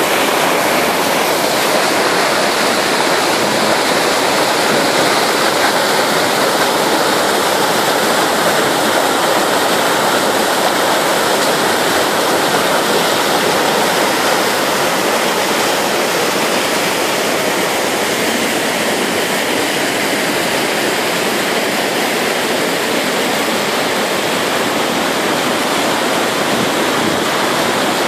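Ground-water spring in flood after heavy rain, gushing up through a stone fountain basin and rushing as white water along a channel and through a culvert: a loud, steady rush of water.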